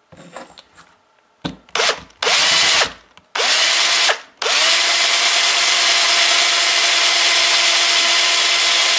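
Cordless Black & Decker Matrix drill, with the 3D-printed pump drill's shaft clamped in its chuck, driving a small bit into a block of wood. It runs in a few short bursts, then runs steadily for about four and a half seconds from the middle on and stops at the end.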